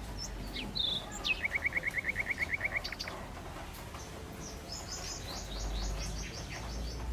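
Several wild birds singing and calling. A fast, even trill of about a dozen notes comes about a second and a half in, and a higher run of quick falling notes follows near the end, over a steady low rumble.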